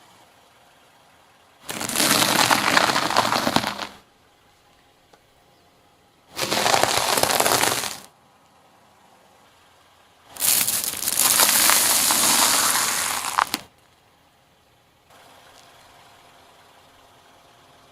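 Crunching and cracking as things are crushed under a car's tyre, three separate crushes of two to three seconds each that start and stop abruptly.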